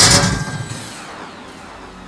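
A loud rushing whoosh at the very start, fading within half a second into a falling sweep, then quiet background music.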